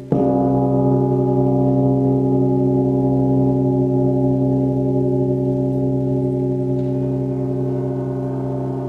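Bilas, flat metal bells, struck once right at the start and left ringing with many overtones that fade slowly; a higher tone comes in near the end.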